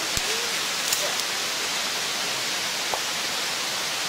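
Steady, even hiss of outdoor background noise, with one short low knock just after the start and a few faint clicks near one second and three seconds in.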